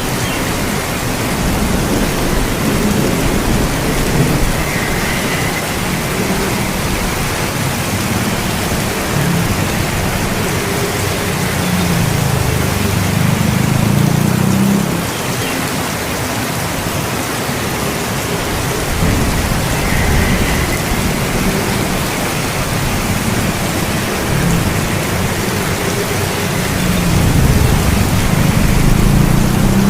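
Steady rain hissing evenly, with low rolls of thunder that swell and fade several times.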